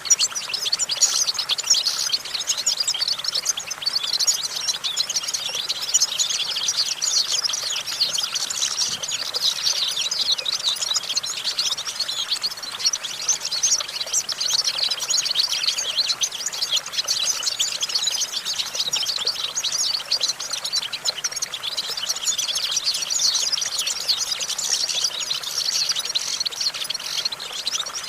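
European goldfinch singing a continuous, rapid twittering song of high, quick notes without a break.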